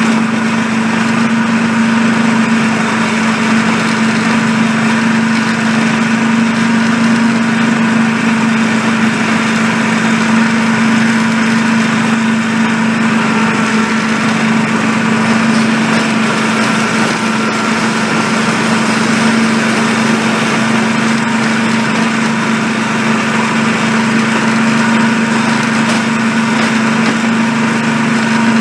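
Miniature railway locomotive hauling a works train, its motor running steadily with an even hum that holds the same pitch throughout.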